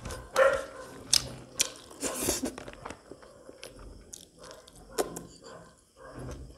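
Close-miked eating by hand: fingers scraping rice and pork off a banana leaf, then chewing with wet lip smacks and sharp mouth clicks.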